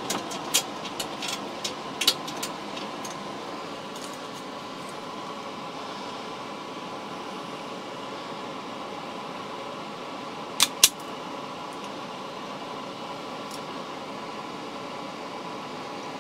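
Steady whir of a bench fume-extractor fan. Light clicks and rustles of a wire being handled in the first couple of seconds. Two sharp snaps close together about ten and a half seconds in, from a hand wire stripper worked on the wire.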